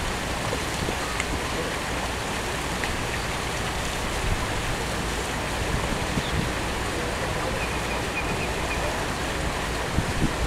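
Steady outdoor noise of wind buffeting the microphone, with a faint murmur of a crowd underneath.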